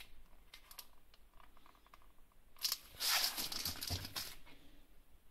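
Plastic cheese packaging crinkling as it is handled, with scattered crackles at first and then a louder burst of crackling a little past halfway, with a light knock in the middle of it.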